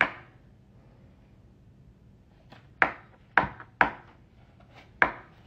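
Several short, sharp taps or knocks in the second half, four of them louder, over low room tone.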